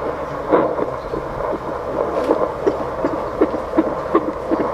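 Fetal heartbeat through the speaker of a handheld fetal Doppler, its probe held on the mother's belly. The beats come in a quick, even rhythm of about two and a half a second, a normal fetal heart rate, over a steady low hum.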